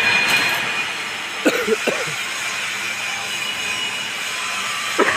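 Steady hissing noise of welding-shop machinery running, with a brief short voice or two about a second and a half in and again near the end.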